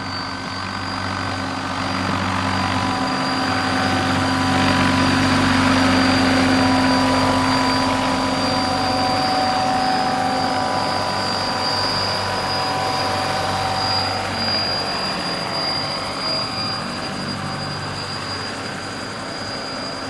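Large-scale radio-controlled tandem-rotor model helicopters, replicas of the CH-113 Labrador, hovering low and setting down: a steady rotor hum with a high, constant whine over it, a little louder about five seconds in.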